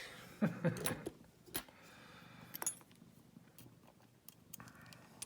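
Scattered metallic clicks and scraping from wire lever-lock picks working inside a 5-lever ERA padlock.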